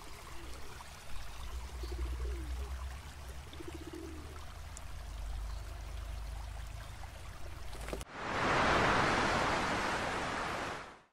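Soft water ambience with a low rumble and a few faint chirps. About eight seconds in, it switches abruptly to the loud, even rush of ocean surf breaking on rocks, which stops suddenly near the end.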